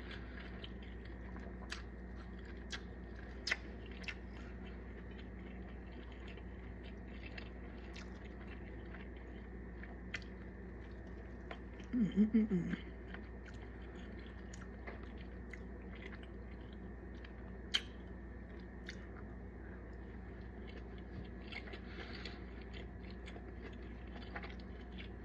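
A person chewing food close to the microphone, with scattered small clicks and mouth sounds over a steady low hum. About twelve seconds in there is one short voiced sound, like a hum of enjoyment.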